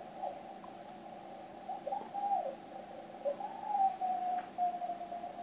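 Yaesu FTdx1200 HF transceiver receiving on the 80 m CW band as its tuning dial is turned: Morse carrier tones slide up and down in pitch over steady band hiss, then settle into a steady tone near the end.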